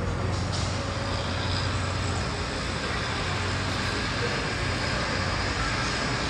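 Steady outdoor city din of road traffic and machinery, a continuous rumble with a low hum underneath.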